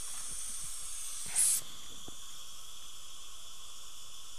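Dental air syringe blowing air: a high hiss that fades over the first second, then a short, louder blast of air about a second and a half in, over a steady high whine.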